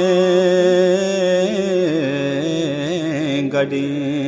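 Male voice singing a Balti qasida, a devotional chant, holding long ornamented notes with a wavering pitch, then stepping down to a lower held note about two seconds in.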